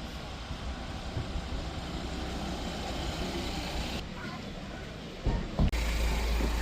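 Steady low rumble of motor-vehicle noise, with two sharp knocks shortly before the end and a heavier low rumble after them.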